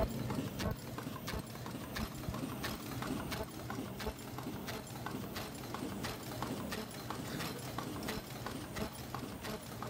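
Automatic production machine with an ultrasonic welding unit running: a steady rhythm of mechanical clacks, roughly two a second, over a low hum.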